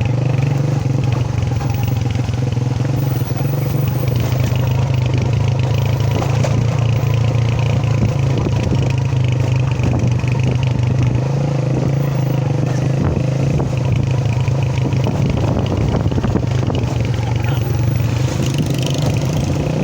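A motor vehicle's engine running steadily at an even speed while travelling, with a constant low hum and scattered rattles over the road.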